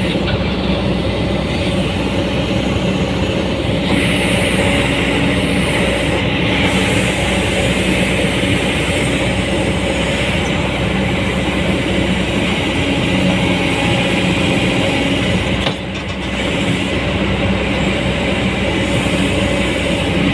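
Komatsu PC200-8 excavator's diesel engine running steadily, with a mechanical rattle over it; it dips briefly for a moment near the end.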